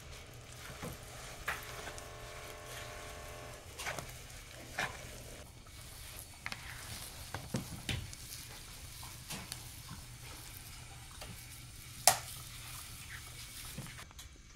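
Raw ground meat being mixed with dry spices in a plastic bowl, stirred with a wooden spoon and worked by hand: irregular wet squelching and squishing. One sharp click about twelve seconds in is the loudest sound.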